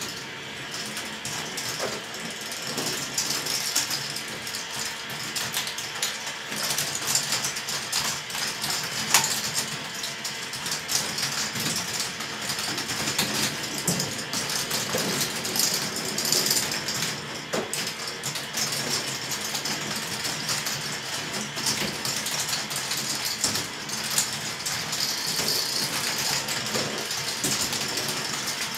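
Large K'nex ball machine running: its motor-driven plastic lifts and gears whir and ratchet, and balls clatter along the plastic tracks in a steady rattle with scattered sharp clicks.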